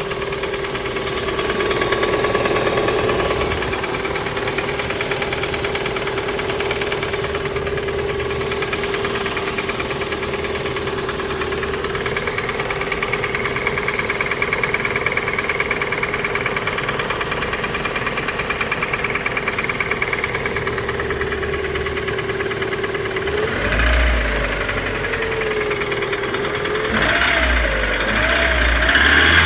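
Lada Priora's four-cylinder petrol engine idling steadily with a knock. The revs rise briefly near the end, once and then in a few quick blips.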